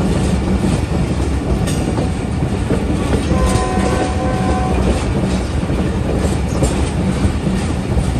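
Passenger train running along the track: a steady heavy rumble of wheels on rail with scattered clicks from the rail joints. About three seconds in, a faint horn sounds for a second and a half.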